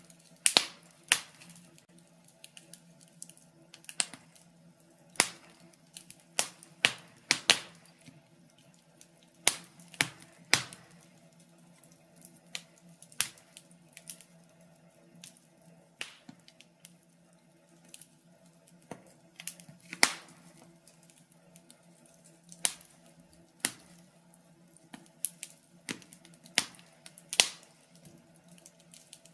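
Wood fire crackling in a fireplace: irregular sharp pops and snaps, sometimes several close together and sometimes a second or two apart, over a faint steady hum.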